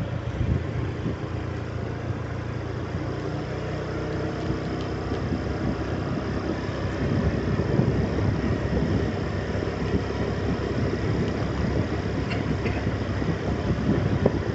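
A vehicle's engine running as it drives along a road, with wind and tyre noise. It gets a little louder about halfway through.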